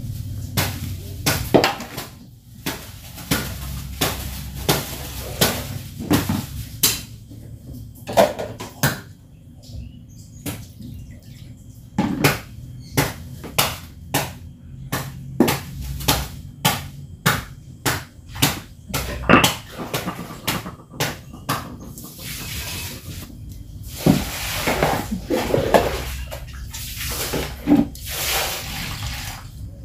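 Hand-washing of plastic cups, basins and a stone mortar: many sharp knocks and clatters of plastic and stone. Near the end, water is scooped and poured with a plastic dipper, splashing into a basin.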